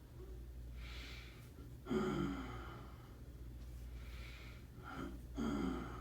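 A person breathing in and letting the breath out with a voiced sigh, twice, about three and a half seconds apart; each sigh starts suddenly and falls in pitch. A low steady hum runs underneath.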